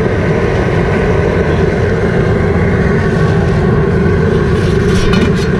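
Propane jet burner of an outdoor seafood-boil cooker running steadily under a large stockpot, heating the water back to a boil. A few short clinks near the end.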